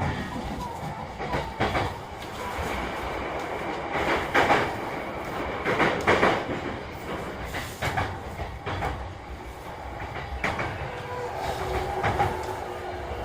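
Inside a JR East E233 series 3000-subseries electric train under way: a steady running rumble, with the wheels knocking over rail joints several times. A steady whine, typical of the train's traction motors, comes in near the end.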